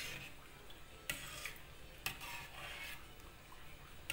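A metal ladle stirring and scraping through sago pearls and coconut milk in an enamelled cast-iron pot, with a few sharp clinks against the pot about a second apart.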